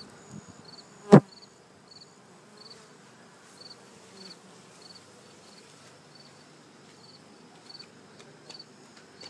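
A cricket chirping in short high pulses about every half second, over a faint hum of honeybees from the open hive. One sharp click about a second in.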